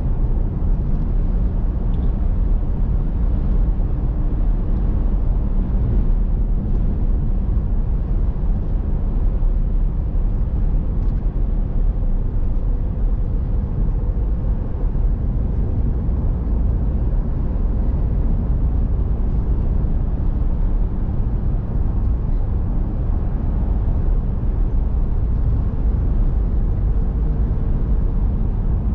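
Steady road and engine noise heard from inside a moving vehicle's cabin while cruising: an even low rumble with no sudden events.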